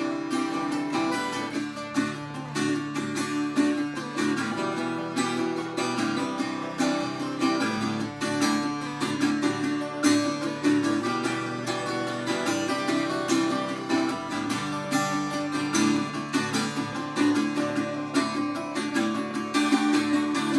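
Two acoustic guitars playing an instrumental break: strummed chords with single notes picked over them.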